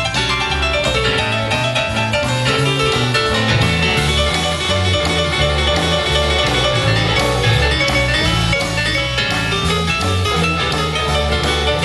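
Live band with saxophones, drum kit and electric guitar playing an instrumental passage, with no singing.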